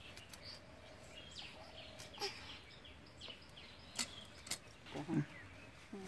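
Fish being cut on a boti, a blade fixed upright on a wooden base: a few sharp knocks and clicks, the loudest about four and five seconds in. Birds chirp briefly in the background.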